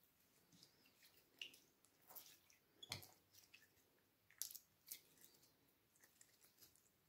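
Clear jelly slime squeezed and kneaded in the hands: faint, scattered wet squishes and sticky pops, the sharpest about three seconds in and again at about four and a half seconds.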